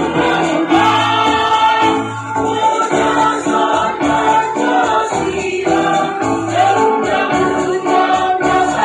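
Mixed choir of men's and women's voices singing in harmony.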